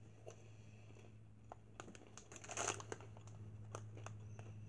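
Faint crinkling of a plastic snack bag being handled: scattered small clicks and rustles, loudest about two and a half seconds in, over a steady low hum.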